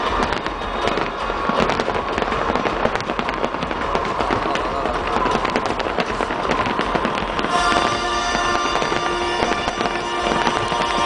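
Fireworks display with dense rapid crackling and pops from many bursting shells, over the show's music soundtrack; about two-thirds of the way in, a held musical chord rises clearly above the crackle.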